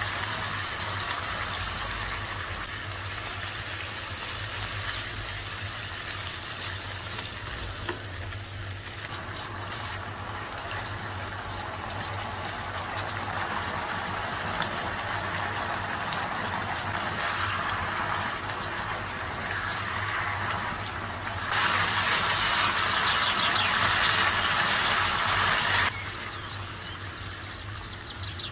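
Food sizzling as it fries in a pan, a steady hiss that turns abruptly louder for about four seconds near the end.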